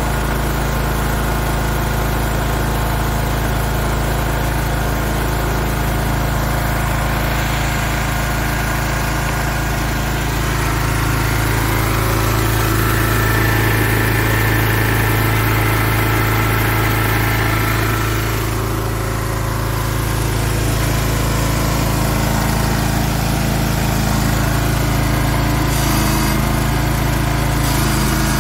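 Ford LGT165 garden tractor's 16-horsepower Kohler engine running steadily. It grows a little louder through the middle stretch, then eases back.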